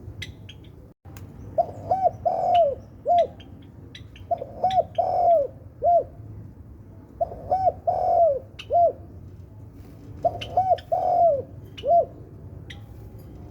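Spotted dove cooing: four phrases a few seconds apart, each of four short coos with the third drawn out. Short sharp chirps from other small birds sound between the phrases.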